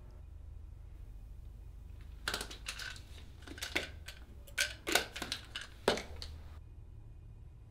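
A run of sharp clicks and rattles from small hard objects being handled, starting a couple of seconds in and ending about a second and a half before the end, with the loudest clicks near the end of the run.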